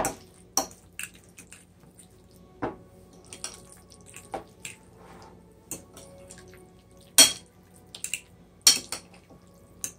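Metal fork stirring and mashing chunky guacamole in a white bowl: irregular clicks and scrapes of the fork against the bowl, with the loudest clicks about seven and nearly nine seconds in.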